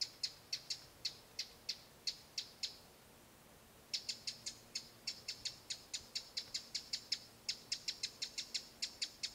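A bird calling with a rapid series of short, sharp high ticks, about four to five a second, breaking off for about a second near three seconds in and then going on.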